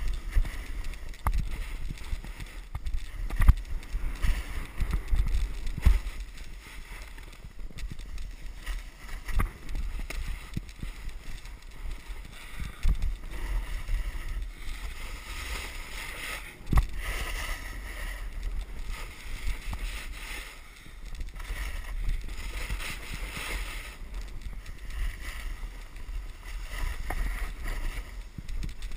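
Edges scraping and hissing over groomed snow while sliding downhill, in long swells, with wind rumbling on the body-mounted camera's microphone and occasional knocks from bumps.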